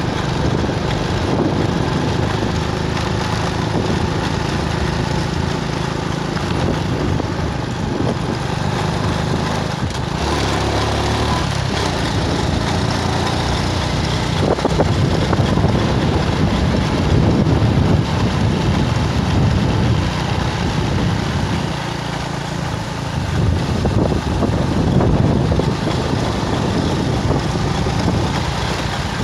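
A vehicle's engine running steadily on the move, with wind and road noise rushing over the microphone; the engine swells a little a couple of times as the road winds.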